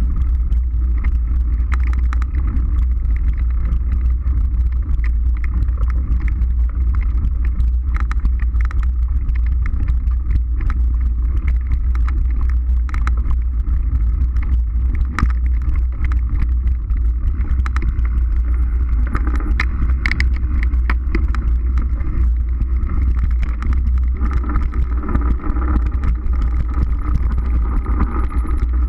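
Mountain bike riding a bumpy dirt forest trail, heard from a camera mounted on the rider or bike: a steady low rumble of wind and vibration on the microphone, with frequent rattles and clicks from the bike over the ground.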